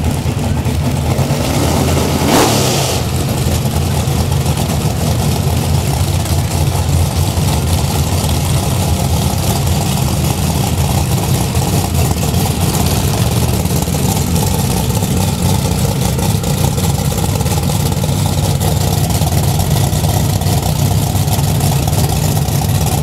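Drag race car engines running with a loud, steady low rumble, one of them passing quickly about two seconds in.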